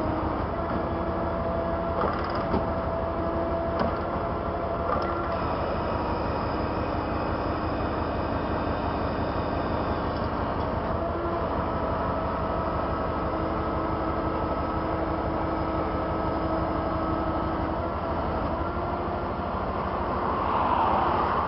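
Heavy truck diesel engine running steadily, with a few sharp clicks or knocks in the first five seconds.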